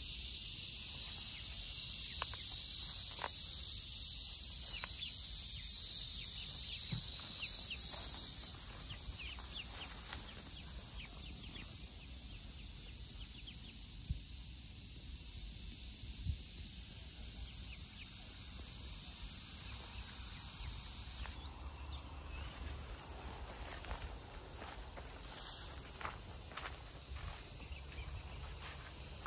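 Steady high-pitched chirring of an outdoor insect chorus, stepping down in level about eight seconds in and again about twenty-one seconds in, with a few faint ticks scattered through it.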